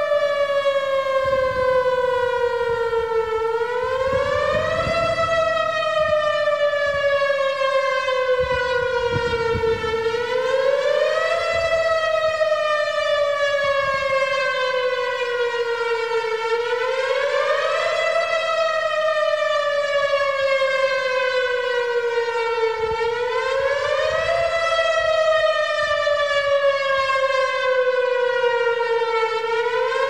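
Tornado warning siren wailing in a repeating cycle. The pitch climbs quickly for about a second and a half, then falls slowly for about five seconds, and the cycle repeats roughly every six and a half seconds.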